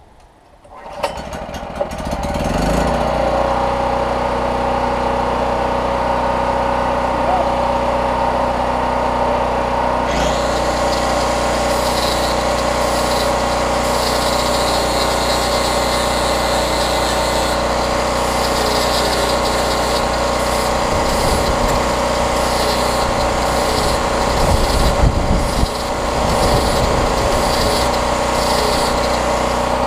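Champion portable generator's small engine starting about a second in and coming up to a steady, governed run. From about ten seconds in, a small handheld electric rotary tool whines on and off over it, grinding metal to sharpen chainsaw felling dogs.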